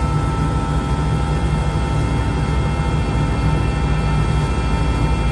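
Military helicopter's turbine engines and rotor heard from inside the cabin in flight: a loud, steady drone with a fast low throbbing and a constant high whine.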